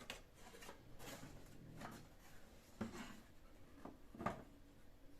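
Light handling noises as bio-fireplace parts are fitted together: a few scattered knocks and clicks, the sharpest a little after four seconds in, with soft rubbing and scraping between them.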